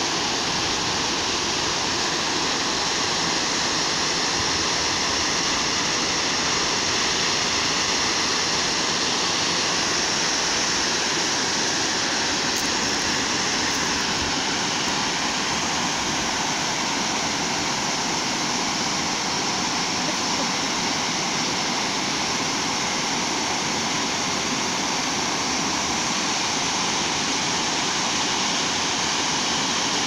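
Waterfall cascading down sloping bare rock into a pool: a steady, unbroken rush of water.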